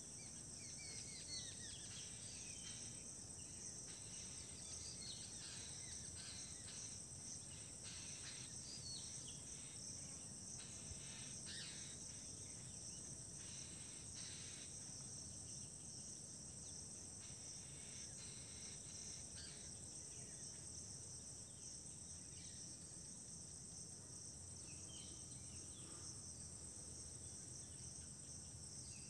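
Crickets chirring steadily, faint and high-pitched, with a low hum underneath.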